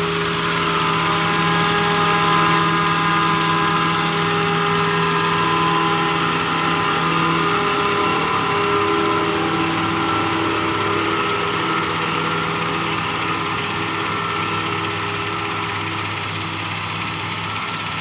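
Claas Jaguar self-propelled forage harvester running steadily while chopping maize for silage: a steady engine drone with a high whine over it, easing off slightly toward the end.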